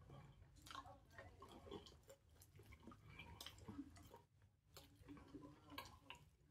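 Faint eating sounds at a plate of steamed fish: chewing and fingers picking the flesh apart, heard as scattered small clicks and soft wet noises.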